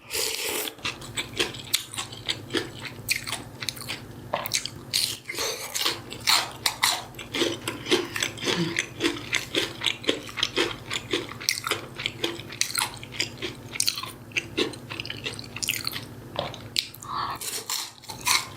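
Close-miked chewing and biting of food, with many short crisp crunches in quick succession over a low steady hum.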